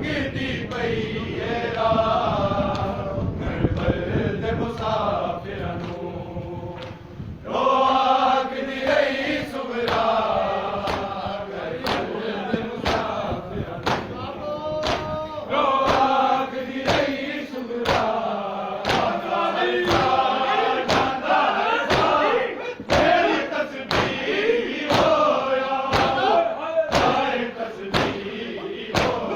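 A group of men chanting a noha (Shia lament) in unison, with rhythmic matam chest-beating thumps about once a second keeping time.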